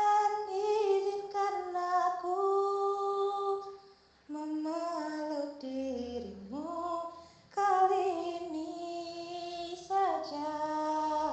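A young woman singing alone without accompaniment, in three long held phrases with short breaths between them; in the middle phrase her pitch slides down and climbs back up.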